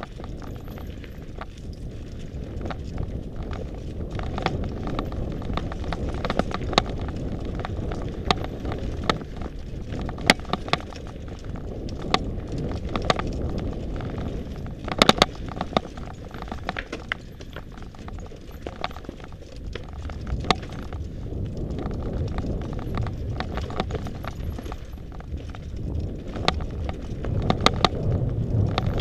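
Mountain bike riding fast down a rocky dirt trail: a steady low rumble of tyres and rushing air, with frequent sharp clicks and rattles as the bike hits stones and roots. There is a cluster of loud knocks about halfway through, and the rumble grows louder near the end.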